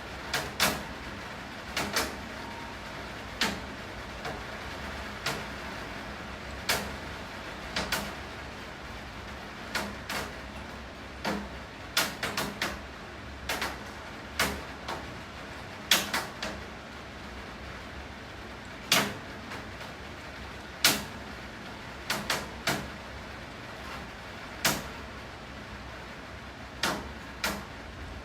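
Steady rain hiss, with irregular sharp taps of heavy drops striking something, about one a second and sometimes two or three in quick succession.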